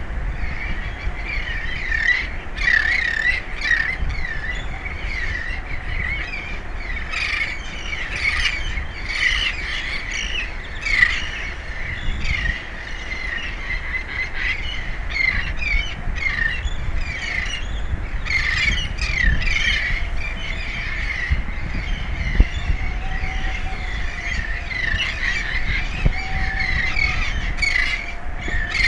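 Birds calling over and over in many short squawks and chirps, with a steady low rumble underneath.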